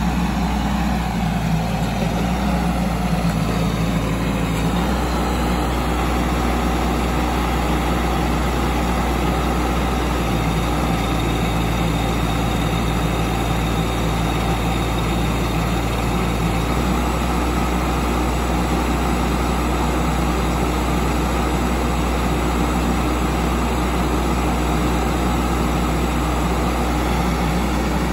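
Doosan DX10Z micro excavator's small engine running steadily while its hydraulics raise the machine on its dozer blade and bucket; the low engine note steps up and down a few times.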